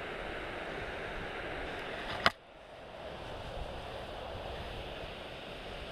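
Steady wind noise on the microphone, with one sharp click a little over two seconds in.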